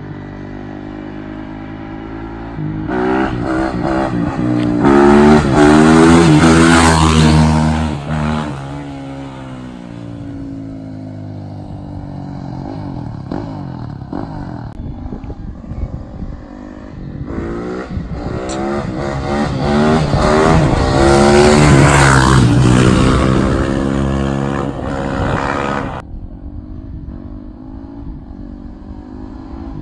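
Yamaha YZ450F motocross bike's single-cylinder four-stroke engine revving hard as it passes close by twice, about three seconds in and again at about seventeen seconds, each pass rising and then falling in pitch. Between the passes it runs more quietly, further off.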